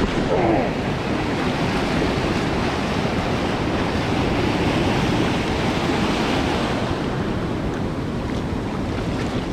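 Ocean surf washing steadily on the beach, with wind buffeting the microphone. A brief falling tone sounds about half a second in.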